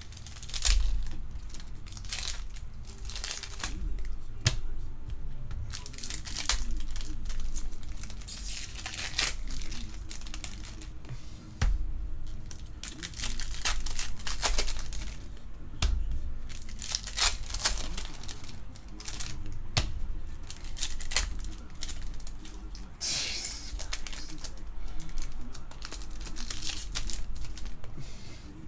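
Foil trading-card pack wrappers crinkling and tearing as packs are ripped open by hand, in irregular bursts with a few low handling bumps. The wrappers tear poorly rather than splitting cleanly.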